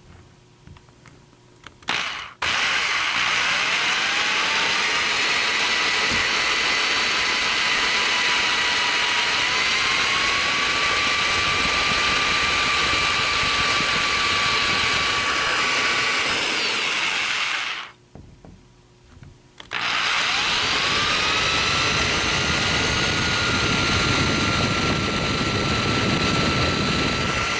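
Power drill with a 5/64-inch bit boring pilot holes into the back of a wooden dresser. After a short blip there are two long runs of about fifteen and eight seconds, each starting with a rising whine as the motor spins up, with a pause of about two seconds between them.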